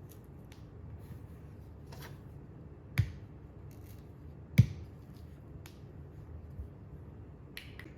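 Kitchen knife clicking and knocking while avocados are halved and their seeds taken out: two sharp knocks about a second and a half apart, the loudest, among lighter scattered clicks.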